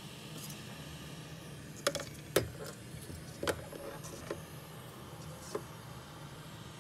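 Sharp clicks and taps of small tools being handled on a repair bench: a cluster about two seconds in, then a few single ones spaced out. They sit over a steady hiss.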